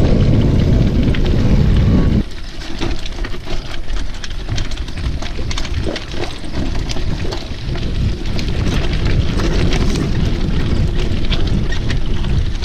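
Mountain bike ridden fast over a rough gravel and dirt trail: tyres crunching over stones and the bike rattling in many small clicks, under a low wind rumble on the microphone. The rumble drops suddenly about two seconds in, leaving the crunching and rattling clearer.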